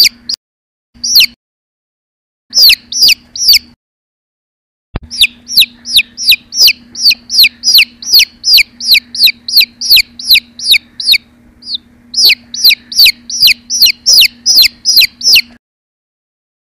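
Chick peeping: loud, short, high peeps, each sliding down in pitch, about three a second, in runs broken by a few silent pauses.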